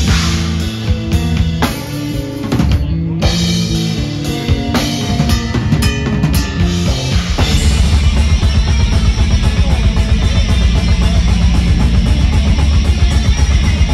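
Live black metal band playing: drum kit and distorted electric guitars. For the first half it plays stop-start accented hits with brief gaps. A little past halfway the full band breaks into a dense, fast section with rapid, continuous drumming.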